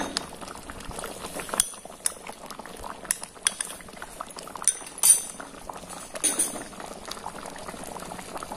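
Grated mango in melted sugar bubbling and popping in a kadai as the chutney boils, with a few sharper clicks and knocks from the wooden spatula stirring against the pan.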